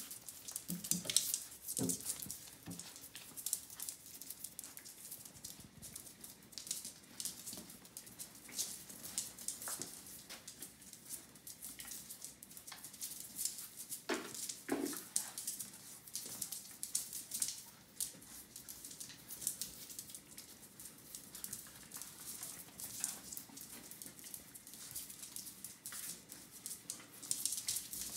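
Puppies at play: claws ticking and scrabbling on a hard cork floor as they wrestle and chase, with a few brief puppy vocal sounds, the clearest pair about 14 seconds in.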